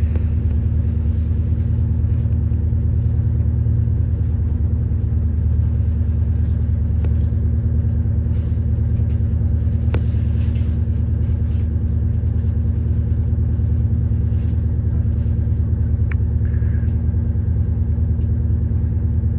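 Steady low drone and rumble of a CrossCountry Class 221 Super Voyager diesel-electric train, heard from inside the carriage as it runs into the station. There is a single sharp click about ten seconds in.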